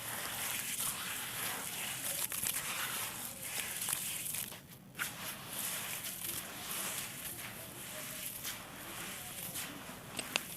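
Small dried blocks of red sandy clay being crushed and crumbled: a steady crisp crackling and crunching, with a short lull about halfway and a couple of sharp snaps near the end.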